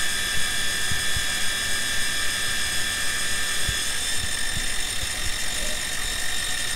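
CNC milling machine with a 3/8 inch end mill at about 3,100 RPM cutting a block of metal, a tenth of an inch deep and a quarter inch wide at about 25 inches a minute: a steady high whine over a rough cutting noise, with irregular knocks from the cut and flying chips. The whine shifts slightly in pitch about four seconds in.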